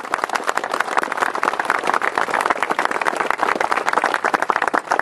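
Audience applauding: many quick, overlapping hand claps.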